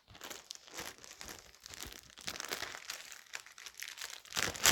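Crinkling and rustling of something crinkly being handled: a dense, irregular run of small crackles that gets louder near the end.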